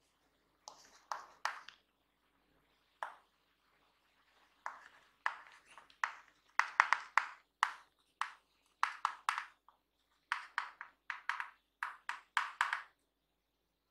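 Chalk writing on a chalkboard: clusters of short, sharp scratching strokes and taps as letters are formed, in bursts with brief pauses between words.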